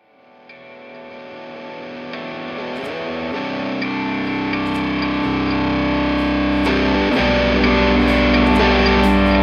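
Background music fading in from silence: distorted guitar rock, with a heavy bass coming in about a third of the way through and drum hits building toward the end.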